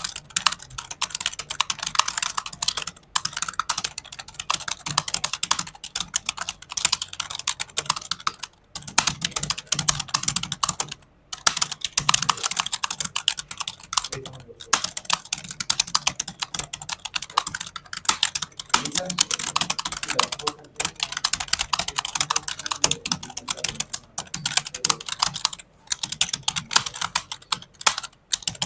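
Fast typing on a computer keyboard, over 100 words a minute: a dense, unbroken stream of key clicks with brief pauses every few seconds.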